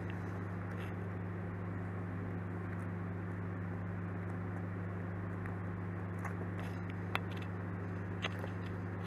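Steady low electrical hum with background hiss. Near the end come a couple of soft taps as the paper pieces are pressed down by hand.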